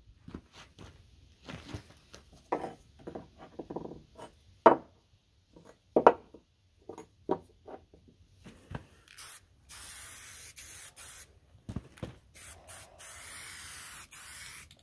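Small steel brackets being turned over and set down on a plywood board, a scatter of light clicks and knocks, then an aerosol spray paint can hissing in two long bursts through the second half.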